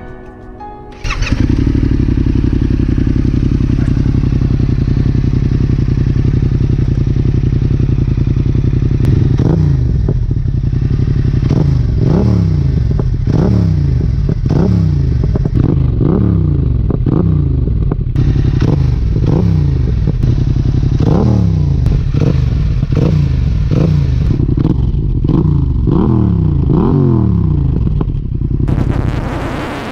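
Yamaha XSR700's parallel-twin engine breathing through an IXRACE MK2 aftermarket exhaust. It cuts in loud and idles, and from about nine seconds in it is blipped repeatedly, roughly once a second, each rev rising and falling back to idle.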